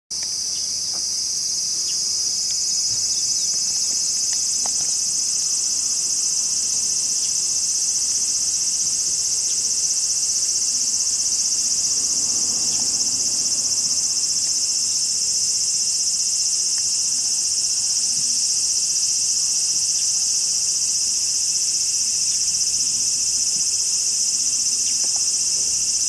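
Large brown cicadas (aburazemi) singing in a steady, high-pitched buzzing drone that swells over the first couple of seconds and then holds.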